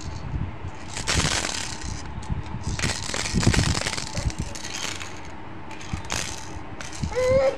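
Plastic baby toys being shaken and knocked together by a baby's hands: irregular bursts of rattling and plastic clatter, with a short pitched squeal near the end.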